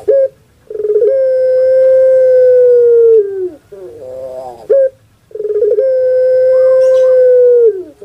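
Puter pelung (Barbary dove, Streptopelia risoria) cooing its long song twice. Each phrase opens with short stuttering notes, then holds one long, steady note for about two seconds that slides down in pitch at the end.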